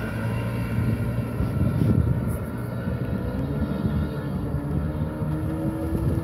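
Motorboat engine running steadily at speed, with a slow rise in pitch in the second half, over the rush of water and wind.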